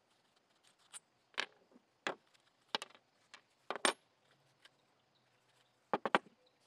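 Scattered short metallic clicks and knocks from hand tools and small carburetor parts being handled and set down on a work surface while the intake manifold is unbolted from a small-engine carburetor. There are about eight separate clinks, with a quick pair about six seconds in.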